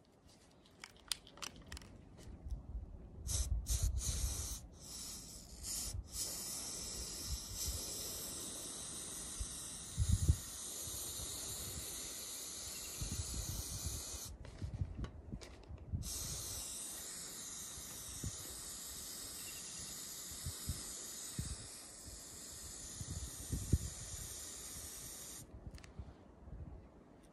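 Aerosol spray-paint can spraying purple paint: a few short spurts at first, then a long steady hiss that breaks off briefly about halfway and stops shortly before the end. A few low thumps sound underneath.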